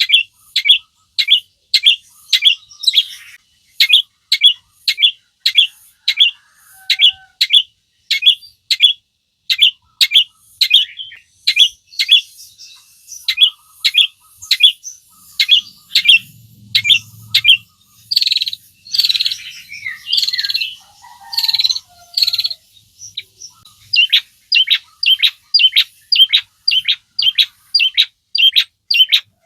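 Long-tailed shrike (cendet) singing: sharp, high notes repeated about two a second, broken in the middle by a louder, scratchier, more varied warbling stretch, then the repeated notes again.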